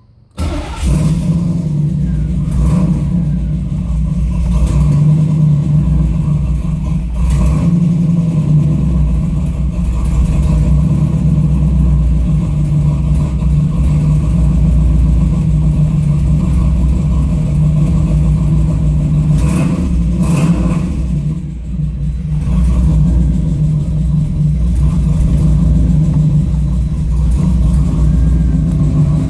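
1992 Chevrolet Camaro engine idling rough and uneven, which the owner shows as a rough-idle problem.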